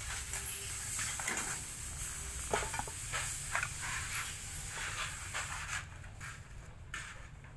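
Handling noise: scattered light knocks and rustling over a low steady hum, fading lower in the last couple of seconds.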